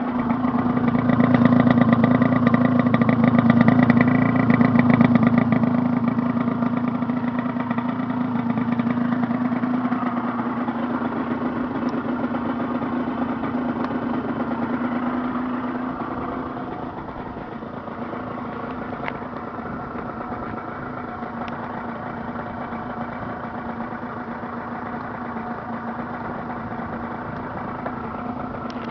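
Aprilia RS 50's 50cc two-stroke single-cylinder engine running. It is loudest in the first few seconds, eases off over the next ten or so, then settles to a steady idle.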